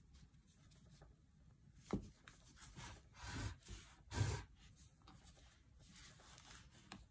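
Crochet hook working thick flat ribbon yarn in double crochet: faint rubbing and rustling as the yarn is drawn through the loops. A light click comes about two seconds in, and two louder rustles follow about a second apart, the second the loudest.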